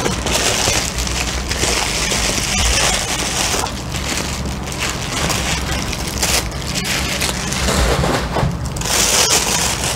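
Bubble wrap and a plastic bag crinkling and rustling as a camera body is unwrapped from them: a dense run of small crackles that swells and eases in patches.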